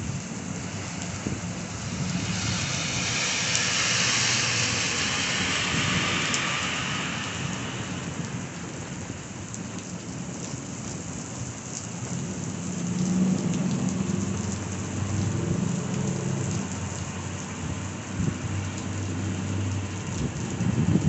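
Heavy thunderstorm downpour hissing steadily onto the street, swelling louder for a few seconds near the start. Low thunder rumbles about halfway through.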